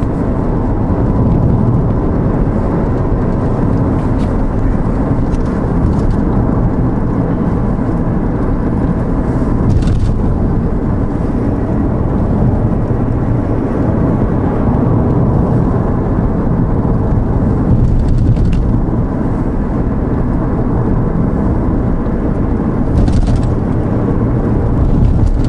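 Ford Focus ST running down the road, heard from inside the cabin: a steady low rumble of engine and tyres. There is no clunk from the rear suspension, which is quiet with its newly fitted Steeda sway bar.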